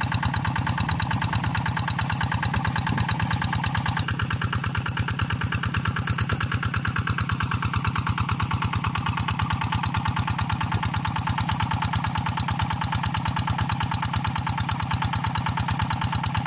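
Small single-cylinder diesel engine running an irrigation water pump, steady with a fast, even beat. Water gushes from the pump's outlet pipe.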